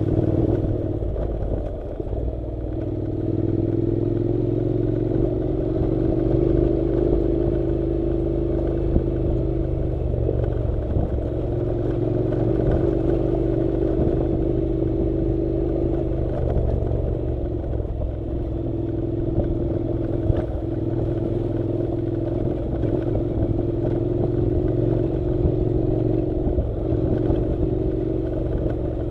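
Honda NC700 motorcycle's parallel-twin engine running while riding a gravel dirt road, its pitch easing off and picking up a little with the throttle. A few sharp knocks from stones and the bumpy surface.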